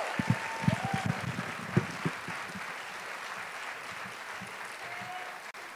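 Theatre audience applauding, the clapping slowly fading away. There are a few dull low thumps in the first two seconds.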